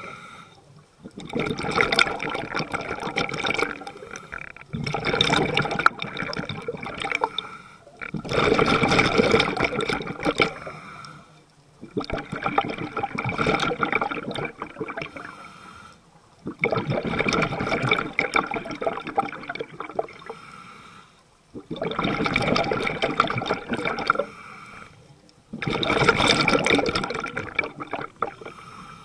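A scuba diver breathes through a regulator underwater. There are about seven slow, deep breaths, each a long rush of bubbles with short quieter gaps between them. The diver is using these breaths to control buoyancy, rising and sinking over the reef.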